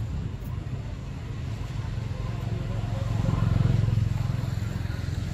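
A motor vehicle's low engine rumble, growing louder to a peak about three and a half seconds in and then easing off as it passes.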